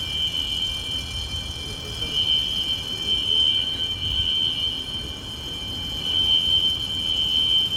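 Building's automatic fire alarm sounding a steady, unbroken high-pitched tone, with a low rumble beneath it.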